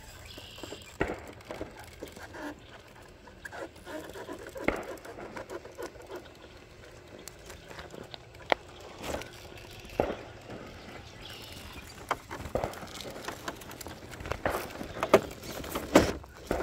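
A Traxxas TRX4 K10 RC rock crawler's tyres and chassis crunching and knocking over rocks and gravel as it crawls. The sound is irregular scattered clicks and knocks, and the sharpest come near the end.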